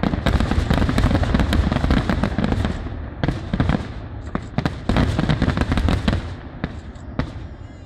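Dense barrage of aerial firework shells bursting in rapid succession, with overlapping booms and crackling. It thins out and fades over the last couple of seconds.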